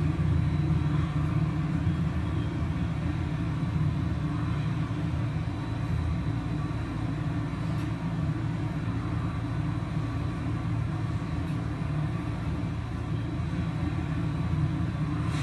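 Recorded running sound of a Tokyo Metro Marunouchi Line train, a steady low rumble, played through the karaoke room's speakers.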